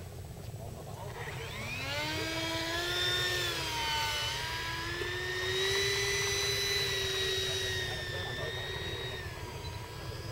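Electric ducted fan of an RC T-45 model jet, a metal fan on a 4000kv outrunner motor run on a 3S LiPo, spooling up with a rising whine a second or so in. The whine wavers briefly, then holds a high steady pitch through the takeoff roll and eases slightly near the end.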